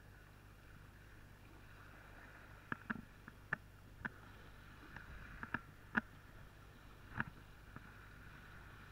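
Faint steady hiss of wind and sea in the rain, with a scattering of short, sharp ticks of raindrops striking the camera, bunched in the middle of the stretch, the loudest about six seconds in.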